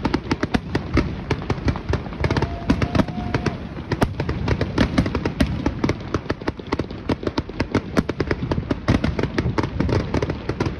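Fireworks display in a rapid, continuous barrage of bangs and crackles, several reports a second without a break.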